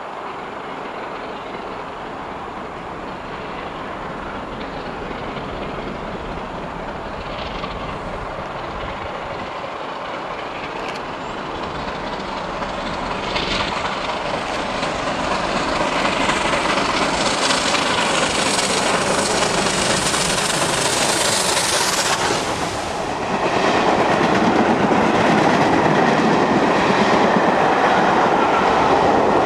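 Bulleid Battle of Britain class steam locomotive 34067 'Tangmere' approaching at speed with a train of coaches, its working exhaust and hiss growing steadily louder until it passes close by about two-thirds of the way through. Then the coaches roll past with a steady clickety-clack of wheels on the rails.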